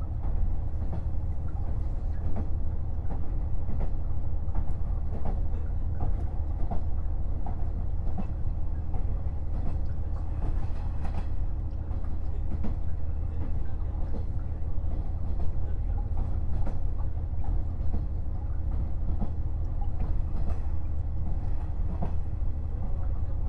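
Onboard running sound of a KiHa 48 500-series diesel railcar: a steady low diesel engine drone under wheel-on-rail noise, with scattered clicks from the wheels over rail joints.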